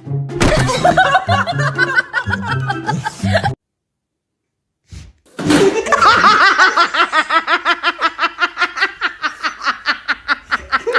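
Background music with laughing over it, cut off after about three and a half seconds. After a short silence, a person laughs hard in a long run of rapid, even "ha" pulses, about five a second.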